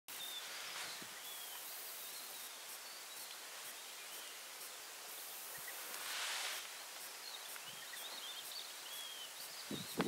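Open-country ambience: a steady hiss with faint, high chirps of small songbirds scattered throughout, and a brief rush of noise about six seconds in.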